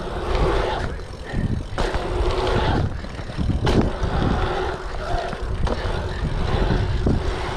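Wind buffeting an action camera's microphone and tyres rolling over asphalt as a bicycle rides fast through a pumptrack's rollers and berms, with sharp knocks from the bike about two and four seconds in.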